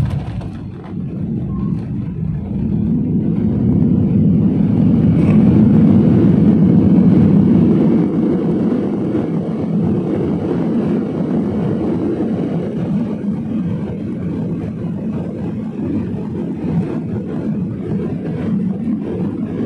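Cabin noise of a jet airliner touching down and rolling out. A short jolt right at the start, then the engines' low rumble builds to its loudest a few seconds in, as on reverse thrust, and eases off as the plane slows on the runway.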